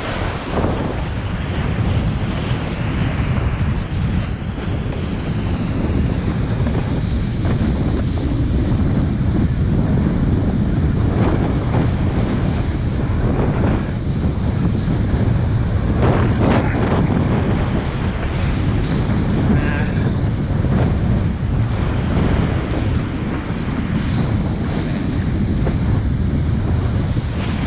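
Strong wind noise on the microphone over rushing water and spray from a kiteboard riding across the sea, with a few brief splashes.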